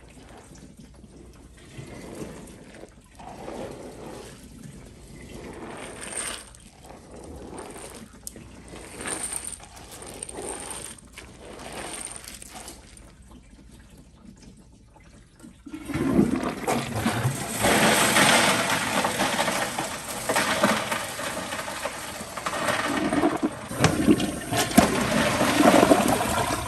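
Toilet flushing: quieter trickling and splashing water, then a sudden loud rush of water about sixteen seconds in that goes on to the end.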